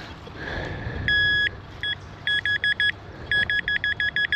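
Metal detector beeping on a buried target: one long beep about a second in, then runs of short, rapid beeps.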